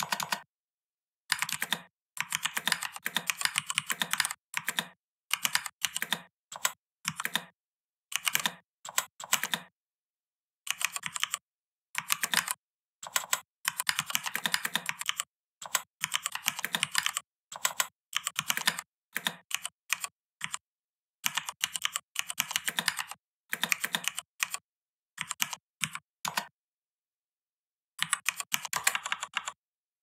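Typewriter-style keystroke sounds, one crisp clack for each key typed on a computer keyboard set to sound like an old typewriter. They come in quick runs of typing broken by short pauses, with a longer pause just before the last run near the end.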